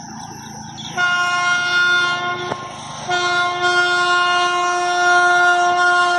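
An approaching electric locomotive sounds its horn twice over the low rumble of the train. The first blast lasts about a second and a half. After a short gap comes a longer one of over three seconds.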